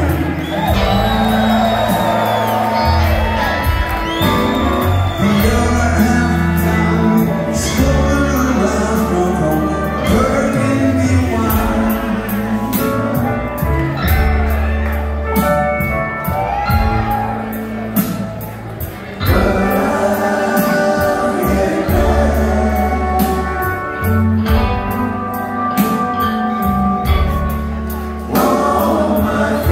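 Live band playing a song with singing, heard from the audience in a large hall.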